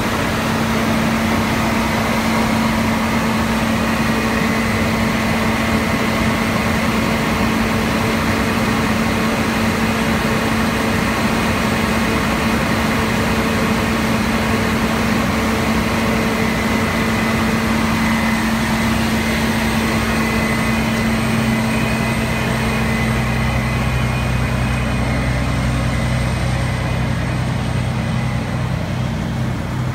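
Fire engine's diesel engine running steadily, a constant drone with a steady hum. About two-thirds of the way through a deeper engine hum joins in.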